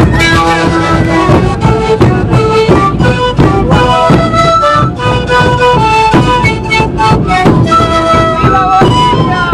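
Loud parade band music: melodies played in held notes on wind instruments over a steady drum beat.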